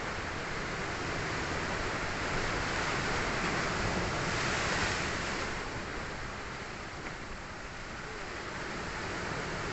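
Sea waves breaking on a beach: a steady rush of surf that swells to a peak about halfway through and then falls back.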